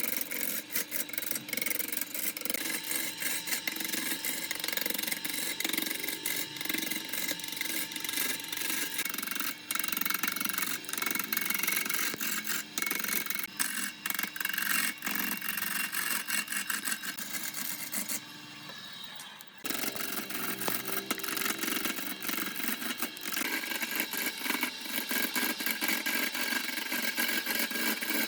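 Wood lathe running while a turning tool cuts the spinning wood: a dense, steady scraping with many small ticks and a faint steady whine. It goes quieter for a little over a second about 18 seconds in, then resumes.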